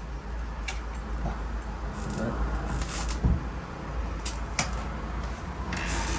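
Scattered sharp clicks and short scrapes of metal tools being worked at a nightlatch, over a steady low rumble.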